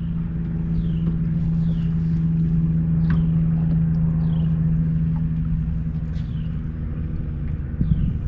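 A motor running at a steady low hum over a low wind rumble, with faint short falling chirps about once a second.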